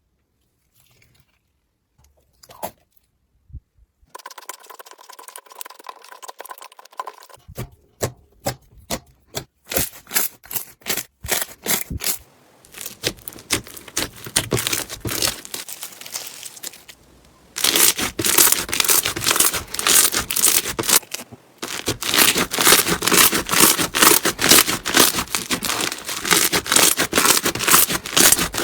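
Crunchy slime being squeezed and pressed, giving dense rapid crackling and crunching. Nearly quiet for the first few seconds, then much louder and denser about two-thirds of the way in.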